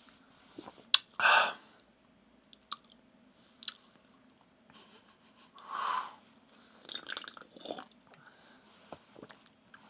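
Mouth sounds of sipping an energy drink from an aluminium can and tasting it: short sips and swallows, lip smacks and breaths between sips. The loudest is a sharp smack about a second in, followed at once by a short breath.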